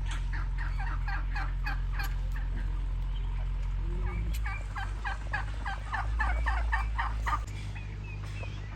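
Domestic turkeys gobbling in rapid runs of short calls: one run in the first few seconds and another from about the middle, with a low steady hum underneath.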